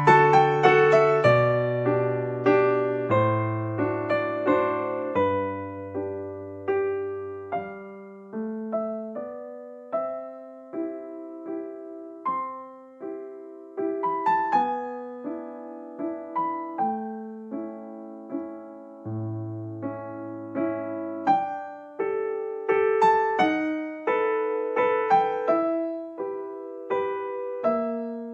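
Background piano music: a slow, gentle piece of struck notes and soft chords, each note ringing and fading.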